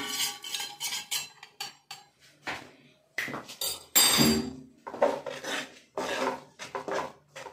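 Steel spoon clinking against a small steel bowl and scraping through roasted besan and ghee in a non-stick kadhai: a series of separate clinks and scrapes of uneven loudness.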